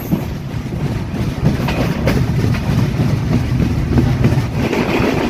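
Intercity passenger train of CRRC coaches running at speed, heard from an open coach window: a steady rumble of wheels on the rails with a few sharp clacks.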